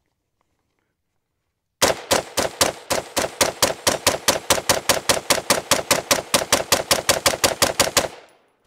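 PSA Sabre 15 AR-15 rifle firing 5.56 rounds in a fast string of semi-automatic shots, about six a second for some six seconds. The string starts about two seconds in and stops abruptly near the end.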